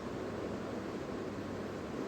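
Steady background noise with a faint low hum and no distinct event: room tone.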